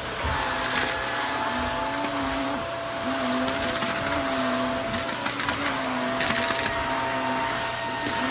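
Vacuum cleaner running continuously with a steady whine, under it a low hum that wavers on and off about once a second; an odd sound the owner puts down to the vacuum being full after sucking up too much sand-wall debris.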